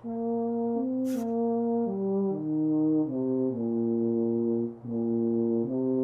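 A slow, gentle tune on brass, held notes moving step by step in two parts, a low line under a higher one. A brief hiss sounds about a second in.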